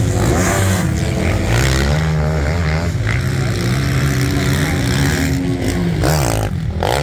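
Motocross bike engines racing, revving up and down so the engine note keeps rising and falling as the bikes accelerate and ease off over the sand track.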